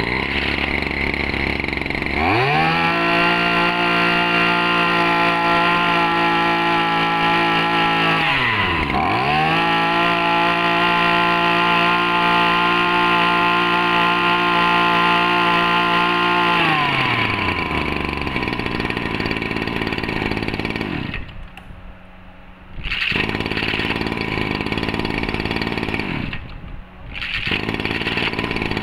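Shindaiwa 260 two-stroke brush cutter engine, 26cc, pull-started by its recoil cord. It catches about two seconds in and runs fast and steady. Its revs drop sharply and pick up again about nine seconds in, then wind down after about sixteen seconds into a rougher sound broken by two short lulls.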